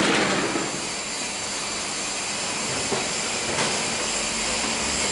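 Single-layer five-rib roofing sheet roll forming machine running, its rollers pressing steel sheet into a corrugated profile: a steady mechanical hiss with a faint high whine, and a light click about three and a half seconds in.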